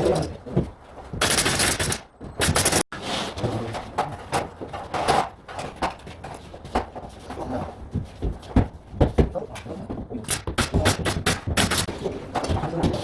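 Pneumatic nail gun firing into ceiling framing: sharp shots at irregular intervals, several in quick runs, with a short blast of noise between about one and three seconds in.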